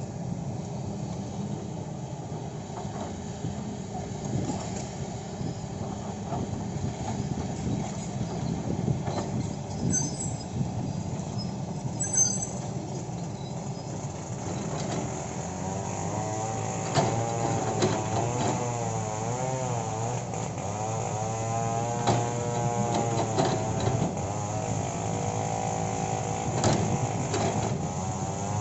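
Kobelco excavator's diesel engine running steadily. From about halfway, a whining tone rises and falls again and again over the engine, with a few sharp knocks.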